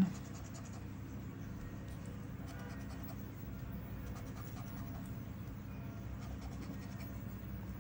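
Coating on a scratch-off lottery ticket being scratched away in light, rapid rasping strokes that come and go, over a steady low hum.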